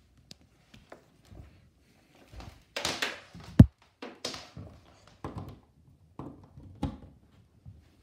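Handling sounds of a vacuum cleaner's power cord being pulled loose and carried to a wall outlet: scattered rustles and light thunks, the loudest a sharp thunk about three and a half seconds in.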